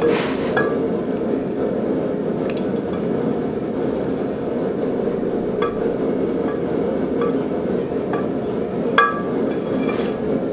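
Hot steel plate being quenched in a bucket of quench liquid, held and worked about with steel tongs: a burst of noise as it goes in, then a steady bubbling rush with scattered clinks of the tongs against the plate and bucket, the loudest clink about nine seconds in. The quench takes the steel out of its critical temperature range to harden it.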